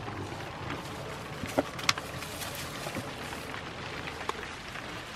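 Light rain falling: a steady hiss with scattered drops ticking, and two sharper taps about one and a half to two seconds in.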